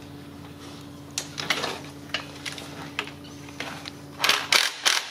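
Light clinks and knocks of hand tools and sockets being handled, then about four seconds in a couple of short loud bursts from a Makita cordless impact driver starting to loosen a 10 mm bolt on the transmission valve body.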